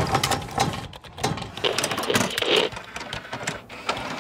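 Sound effects for an animated logo intro: a dense run of quick mechanical clicks and clatter, swelling briefly about two and a half seconds in.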